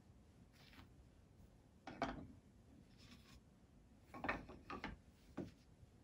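Satin cloth bag rustling, with soft knocks of wooden puzzle pieces as they are slid into it, in a few short bouts: one about two seconds in, then a cluster later on.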